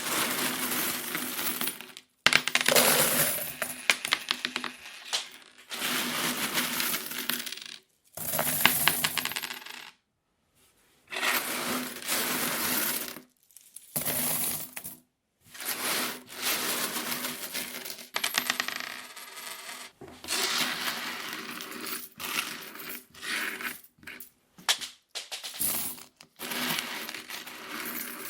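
Loose metal coins being sorted by hand, clinking and jingling against each other in busy stretches of a few seconds, broken by short silent pauses.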